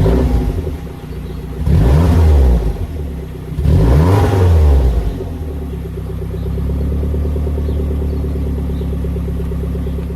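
1993 Saab 900 turbo's B202 four-cylinder engine idling through an aged, leaking Klarius exhaust system, revved twice in short blips about two and four seconds in, each rising and falling in pitch, then settling back to a steady idle.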